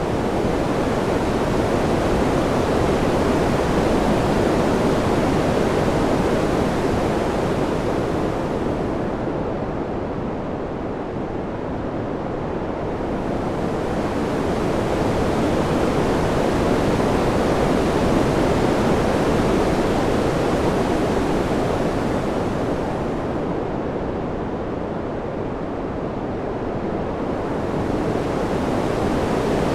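Wind ambience: an even rushing noise that swells and eases slowly, its hiss fading out twice and then returning.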